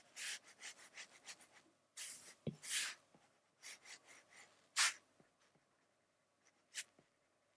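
Stylus stroking and tapping on a tablet's glass screen while erasing sketch lines: a run of short scratchy rubs over the first three seconds, a few more around four seconds, a sharp tap just before five seconds, then only an odd faint tick.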